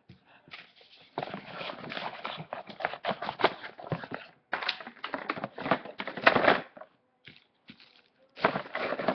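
Packaging rustling and crinkling as items are handled and moved about on a table, in irregular bursts with small knocks and clicks. It stops for about a second and a half near the end, then starts again briefly.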